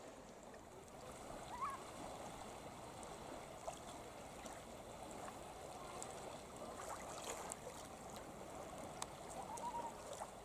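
Faint, steady lapping and gurgling of calm Baltic Sea water around shoreline boulders.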